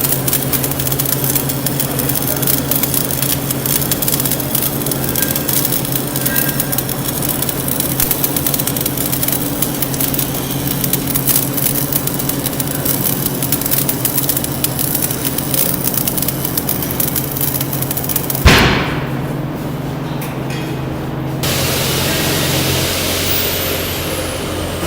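Stick-welding arc crackling steadily as a 1/8-inch 6013 rod burns at about 120 amps, over a low steady hum. About eighteen and a half seconds in the arc breaks with a sharp snap and the crackle stops, leaving the hum and then a steady hiss.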